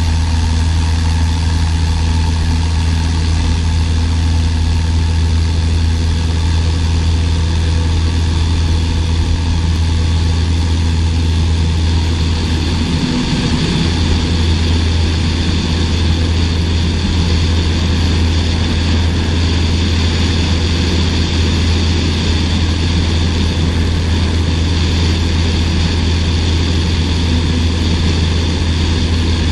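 Cessna 152's four-cylinder Lycoming engine and propeller running at takeoff power through the takeoff roll and climb-out, a loud steady drone that wavers briefly about halfway.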